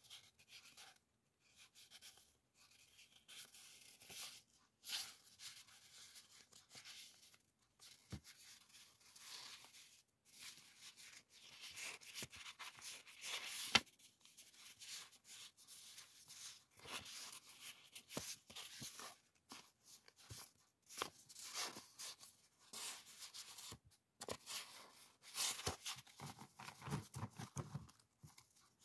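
Sheets of printed background paper being leafed through by hand: soft, uneven paper rustles and swishes as sheets are turned, with a sharper flick of a sheet about halfway through.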